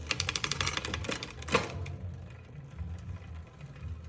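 Bicycle drivetrain on a 3x8 Trek Dual Sport 8.3, worked by hand through the gears: a fast run of ticking for about a second, a sharp click about a second and a half in, then the chain running steadily and low.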